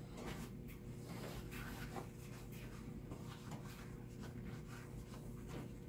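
Cloth handled and rubbed over a smartphone's glass screen, a soft, irregular rubbing and rustling of wiping strokes.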